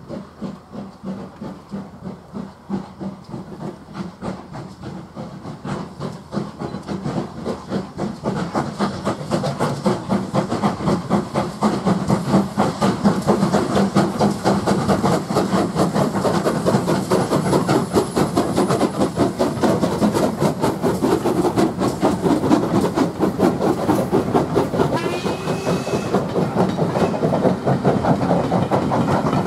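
Steam locomotive hauling a train of coaches, its rapid exhaust beats growing louder as it approaches and passes close by, with steam hiss and the clatter of coach wheels over the rail joints.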